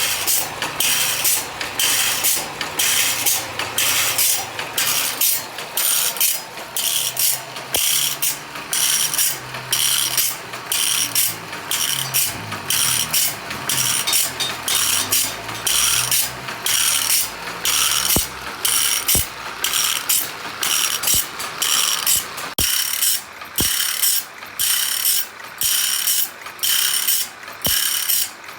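Automatic saw-sharpening machine running, its grinder rasping across one tooth after another in a steady, even rhythm of about one and a half strokes a second, over a low motor hum that fades out about halfway through.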